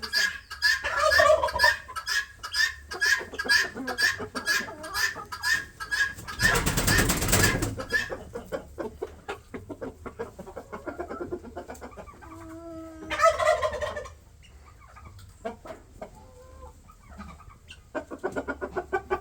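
A flock of mature chickens clucking and calling, with an even run of ticks, about three a second, through the first eight seconds, and a loud rush of noise lasting over a second near the middle.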